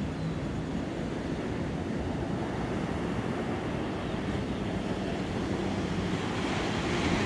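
Surf breaking and washing up a sandy beach, a steady rushing, with wind on the microphone.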